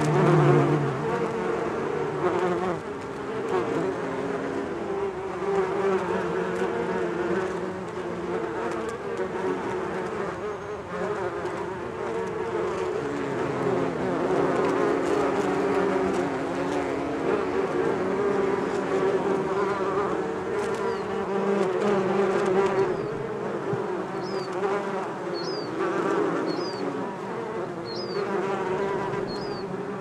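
Many bees buzzing around a massive hive: a dense, steady hum of overlapping, wavering pitches, briefly louder at the very start. Short high chirps repeat in the last few seconds.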